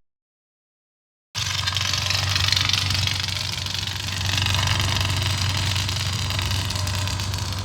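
Kylo Ren's lightsaber sound effect idling: after a second and a half of silence it switches on as a steady low hum under a rough, noisy hiss, the unstable, crackling idle of his crossguard saber.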